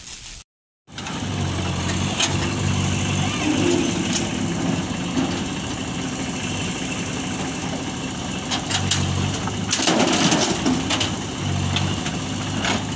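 Diesel engines of a JCB 3DX backhoe loader and a tractor running at a dig. The low engine note swells several times as the backhoe works, and there is a loud noisy burst about ten seconds in.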